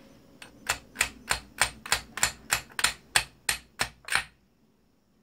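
A hammer striking a metal part of a foot massager's motor about a dozen times in a steady rhythm, roughly three sharp blows a second, to knock a stuck part loose. The blows stop a little after four seconds in.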